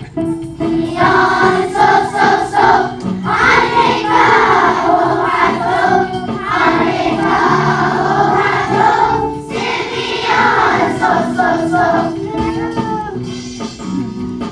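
Children's choir singing together, with steady musical accompaniment underneath.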